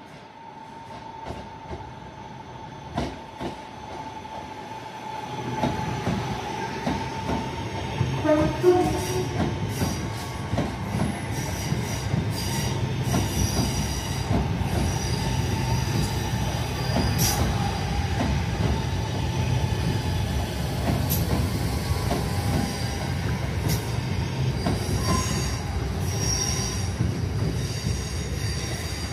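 Two coupled Class 323 electric multiple units approach and run past along the platform. A steady tone early on gives way, about five seconds in, to louder running noise from wheels on rail, with a regular run of clicks as the carriages go by.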